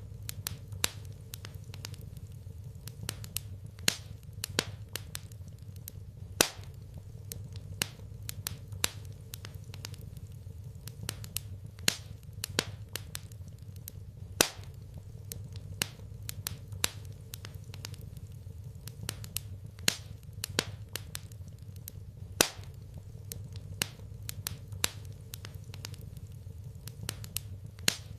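Wood fire in a fireplace crackling, with irregular sharp pops and snaps, a few of them loud, over a steady low rumble.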